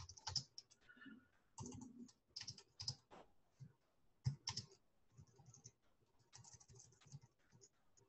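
Faint typing on a computer keyboard: irregular keystrokes, busier in the first half and thinning out toward the end.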